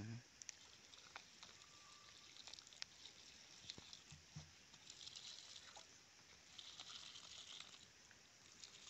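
Faint patter and splash of water poured from a plastic jerrycan onto dry soil, with scattered small ticks and two short stretches of brighter hiss in the middle.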